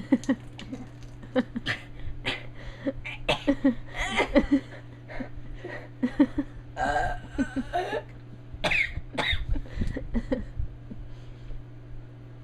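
A person gulping carbonated soda from a shotgunned can, with short gulping and coughing bursts coming in an irregular run as the fizzy drink goes down too fast.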